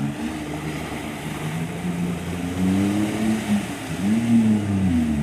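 Off-road 4x4's engine running under load, revved up and back down twice in the second half.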